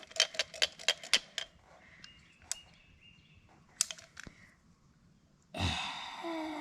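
Sharp metallic clicks and taps of hand tools working at a stuck carburetor float bowl on a push mower: a quick run of about six clicks at first, then a few scattered ones. About a second before the end, a loud breathy exhale.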